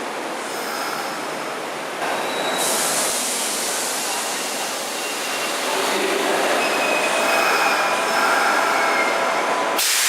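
Kintetsu electric train moving through, its wheels squealing with thin high tones over the running noise, louder from about two seconds in. A loud hiss starts just before the end.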